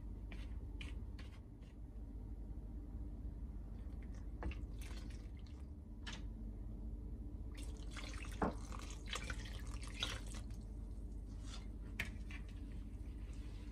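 Silicone spatula stirring dry flour and clicking against a ceramic mixing bowl, then liquid poured from a cup into the flour for about three seconds, starting roughly halfway through.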